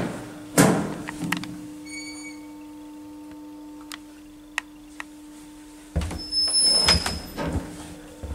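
Small Kone-modernised traction elevator: a door shuts with a loud knock, then the lift's machinery hums steadily with a few light clicks. About six seconds in, a door slides and knocks with a thin high squeal.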